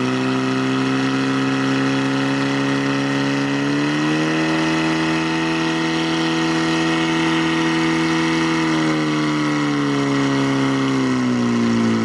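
Portable fire pump's engine running hard at high revs. Its pitch steps up about four seconds in, holds steady, then eases back down over the last few seconds.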